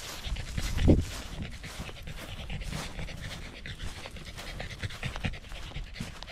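A corgi panting quickly and rhythmically, tongue out, as it trots along. A single low thump about a second in.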